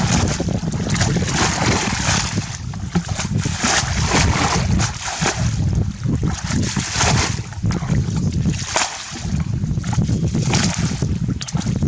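Water splashing and sloshing in uneven surges, with a steady low rumble underneath.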